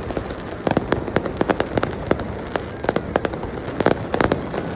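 Aerial fireworks going off: an irregular string of sharp bangs and crackles in quick clusters.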